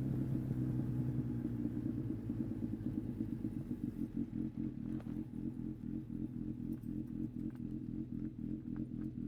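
Yamaha XJR1300's air-cooled inline-four engine settling to a steady idle with an even pulsing beat as the revs drop at the start.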